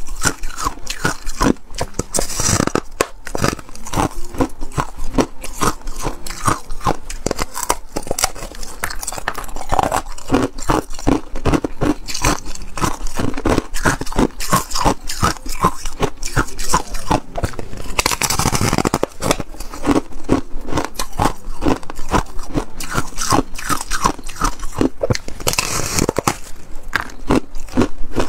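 Close-miked crunching and chewing of thin ice and frozen foam ice: dense, irregular crackles and crunches as the ice is bitten and broken up in the mouth, with a few longer, louder crunches.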